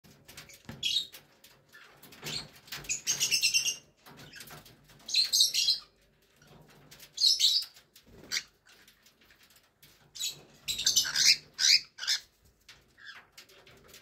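Young cockatiels giving short chirping calls in about five bursts, with many small sharp clicks between them from beaks pecking and cracking seeds in a clay dish.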